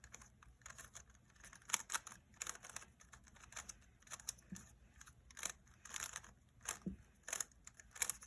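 Rubik's Cube being scrambled by hand: a quick, irregular run of faint plastic clicks as the layers are twisted.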